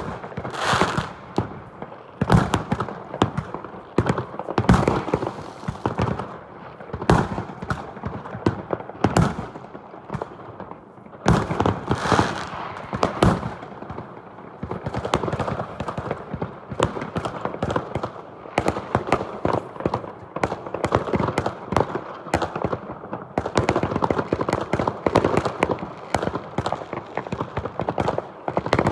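Fireworks going off: loud bangs about every one to two seconds at first, then from about halfway a dense run of rapid cracks and bangs.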